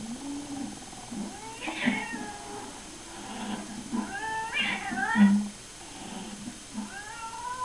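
Angry cats yowling and caterwauling from a video played through computer speakers: a string of drawn-out, wavering cries that rise and fall in pitch, loudest about five seconds in.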